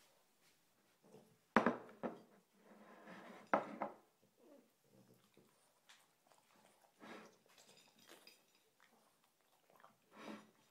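A French bulldog eating from a dish, with quieter eating noises between sharp knocks. Two knocks of the dish, about one and a half and three and a half seconds in, are the loudest sounds.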